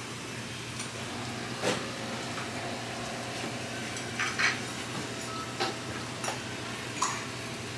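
A person chugging a beer: a few short, faint gulps over a steady low hum.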